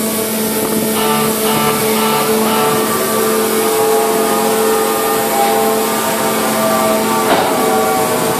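Tunnel boring machine's machinery running with a steady, humming drone, with a few short pulses about a second in and a brief sharper noise near the end.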